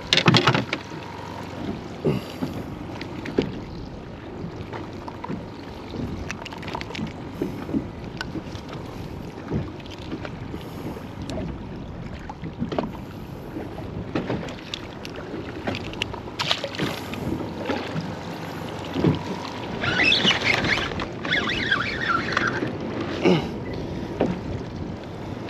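Water lapping and slapping against the hull of a small fishing boat, with wind on the microphone and scattered knocks and clicks from the fishing rod and line being handled. A few louder bursts of noise come about twenty seconds in.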